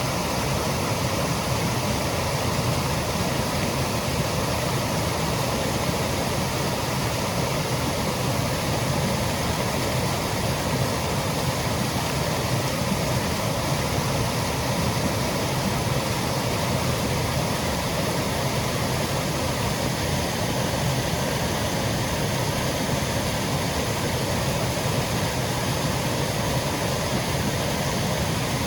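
Small woodland waterfall, water cascading over rocks in a steady, unbroken rush.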